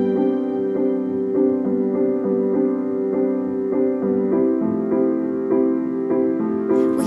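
Background piano music, a calm run of held notes at an even level.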